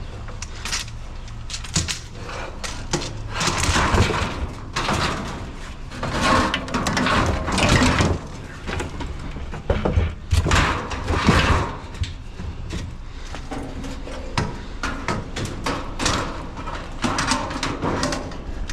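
Scrap metal and chairs being shifted and loaded into a vehicle: irregular clunks, knocks and scraping with louder bangs scattered throughout.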